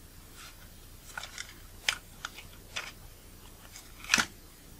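Small, irregular clicks and scrapes of a thin metal tool against the plastic barrel and parts of a Nikon 18-55mm kit lens as the optical block is worked loose, the sharpest click about four seconds in.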